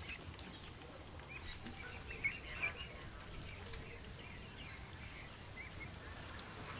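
Ducklings peeping softly and repeatedly in short high chirps, with two sharper, louder sounds a little over two seconds in.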